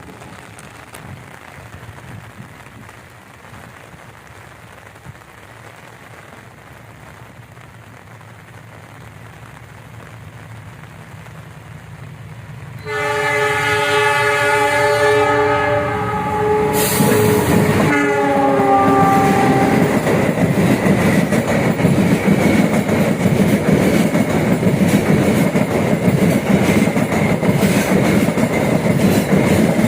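Passenger train approaching with a slowly growing rumble, then the locomotive's multi-tone horn sounding for about seven seconds, its pitch dropping as it passes. The carriages follow with a loud rush and wheel clatter on the rails.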